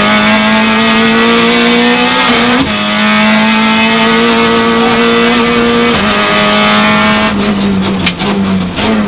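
Peugeot 106 S16 rally car's 1.6-litre 16-valve four-cylinder engine heard from inside the cabin, running hard at high revs with the note slowly climbing and two brief breaks in it, about two and a half and six seconds in. Near the end the revs drop and waver as it comes off the throttle, with a few sharp cracks.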